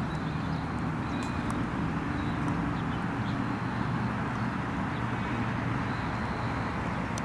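Steady outdoor background noise, strongest in the low range, with a few faint high chirps.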